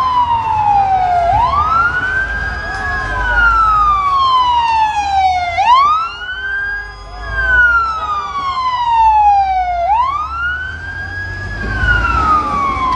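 Fire truck siren wailing. Each cycle sweeps quickly up in pitch, then glides slowly back down, about once every four seconds.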